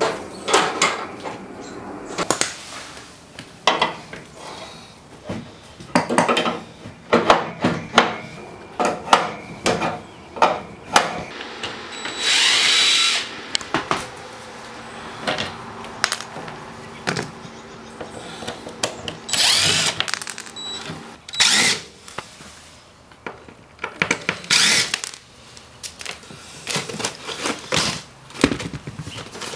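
A power drill-driver running in a few short bursts, the longest about a second, among many sharp knocks, clicks and clatter from cabinet parts being worked loose.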